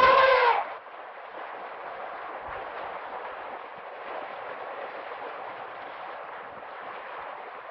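A loud African elephant call cuts off about half a second in. It is followed by a steady, even rushing noise with a few faint low thuds.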